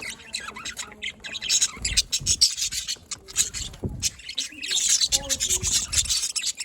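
Budgerigars chirping and chattering in rapid, overlapping high twitters, with a few louder squawky bursts.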